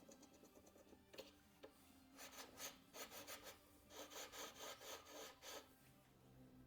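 Faint scraping strokes in two quick runs, several strokes a second, like metal being rubbed or filed by hand.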